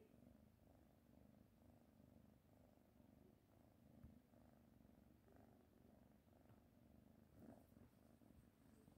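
Kitten purring faintly, a low purr that swells and fades about twice a second with its breathing.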